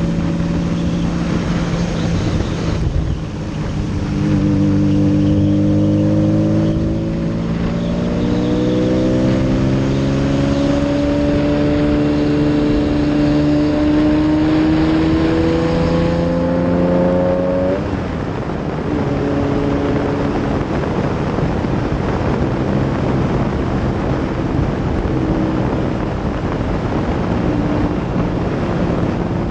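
Lamborghini Diablo SE30's V12 engine accelerating, its pitch climbing with gear changes about three and seven seconds in, then a long climb in pitch. About eighteen seconds in the pitch drops sharply, and the engine holds a steady, lower drone.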